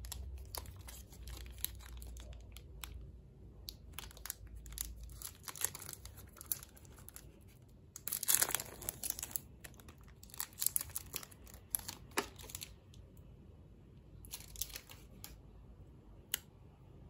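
Metallised wrapper of a Nestlé Munch chocolate wafer bar crinkling as it is handled and torn open, with scattered sharp crackles and a louder rip about eight seconds in.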